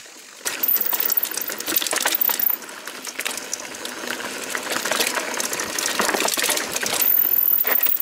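Santa Cruz 5010 mountain bike rattling fast over rough trail: a dense, rapid clatter of chain, frame and wheels that starts about half a second in and cuts off suddenly near the end.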